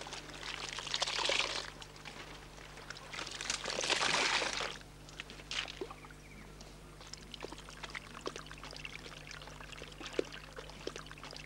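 Water poured over sago pith pulp in a fibre strainer, splashing in two washes about a second in and around four seconds in, then trickling with scattered small wet clicks as the pulp is worked by hand.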